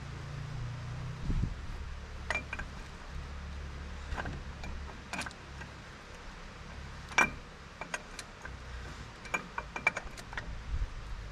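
Scattered sharp metallic clicks and clacks of a hub nut tool and ratchet working the outer locking nut on a Toyota 4Runner's front wheel-bearing spindle, the loudest about seven seconds in and a quick run of clicks near the end.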